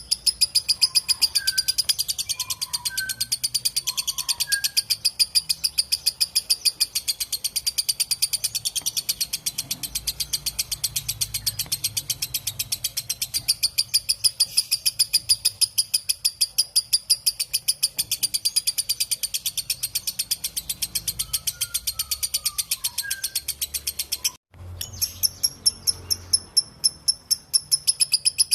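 Lovebird's long ngekek chatter: a rapid, unbroken string of sharp, high-pitched notes repeated many times a second. It cuts out for an instant about 24 seconds in, then goes on.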